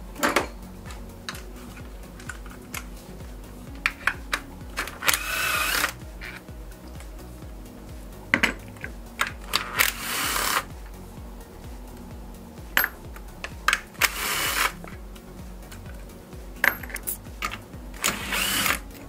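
Ratchet wrench with a 17 mm socket loosening the top engine mount nuts: short bursts of rapid ratchet clicking, about four of them, between scattered single metallic clinks.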